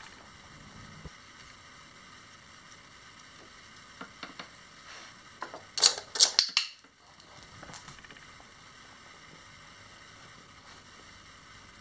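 A dog pressing the push-button pad of a plastic treat-dispensing toy: a few light plastic clicks, then about six seconds in a short, loud rattling clatter as the dispenser turns and treats drop into its plastic tray, followed by a few more light clicks.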